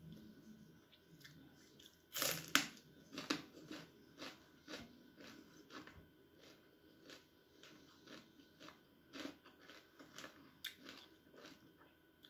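A person chewing raw bitter gourd with crisp crunches, loudest in a cluster of bites about two seconds in, then lighter crunching chews through the rest.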